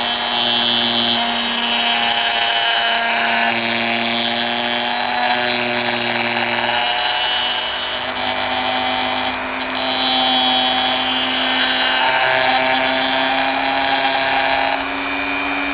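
Small power tool running steadily as it shaves the inner fender of a 1:64 die-cast toy car, its pitch dipping and recovering a few times as it bites into the part.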